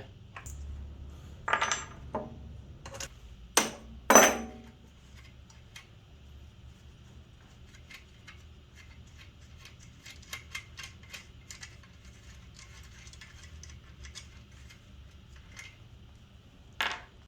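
Loose metal hardware clinking as the axle nuts and training-wheel brackets come off a child's bicycle rear axle: a few sharp clinks in the first seconds, a run of faint light ticks through the middle, and one more clink near the end.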